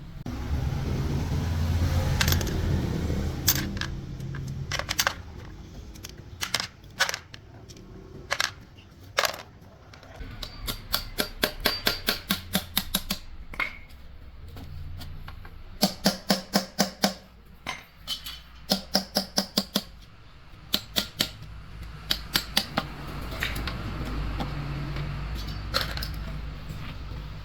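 Sharp metallic clicks and taps in quick runs of several a second, as hand tools work on metal, over a low steady hum.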